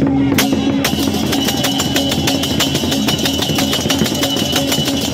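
Balinese processional percussion playing a fast, even beat of sharp metallic strikes over a steady held tone; the rapid beat comes in about a second in.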